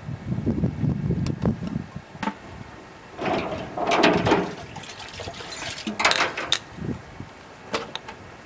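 Water splashing and sloshing in a hot-water soak tank as a piston is fished out, in two bursts about three and six seconds in. Before that, low rubbing and knocking of metal engine parts being handled.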